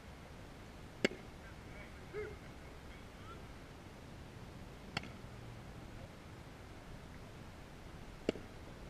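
Baseball popping into a catcher's mitt: three sharp, short pops about three to four seconds apart.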